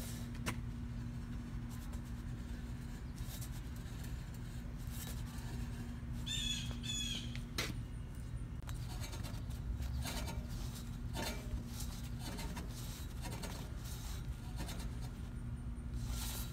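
A steady low hum with scattered clicks and taps, and a bird chirping several times about six to seven seconds in.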